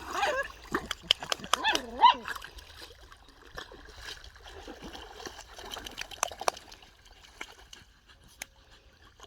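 Water splashing and trickling as dogs are cooled off with water, with a few short dog whines and yips in the first couple of seconds.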